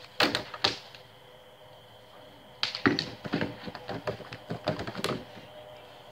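Training swords clacking against each other and against riot shields in a sparring exchange. There are two quick strikes about a quarter second apart near the start, then a fast, irregular flurry of clacks for about two and a half seconds.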